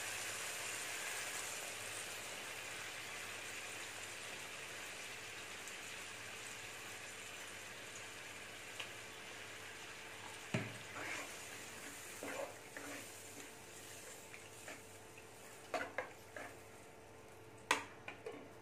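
Thin coconut milk hitting a hot pan of sautéed onions and tomatoes: a steady sizzle that slowly dies down as the liquid settles. From about halfway, a ladle stirs and scrapes in the pan with a few knocks, and near the end a glass lid is set on the pan with a sharp clink.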